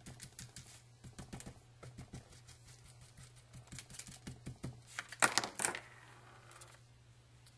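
Glue pen tip dabbed rapidly on cardstock: a run of quick, light, irregular taps, with a few louder clatters a little past five seconds in before it goes still.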